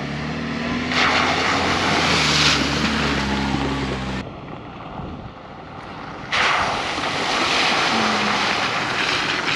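A 1995 Jeep Wrangler's engine running steadily as it drives through muddy puddles, its tyres splashing water. About four seconds in the sound cuts abruptly; a couple of seconds later a 2004 Lexus GX470 splashes through the same puddles.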